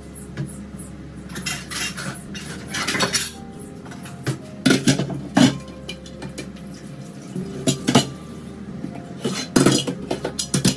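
Metal kitchen utensils and cookware clinking and knocking: a string of sharp strikes, the loudest about halfway through and again near the end, over a low steady hum.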